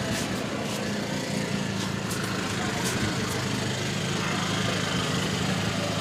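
A small engine running steadily, with a few short sharp clicks over it.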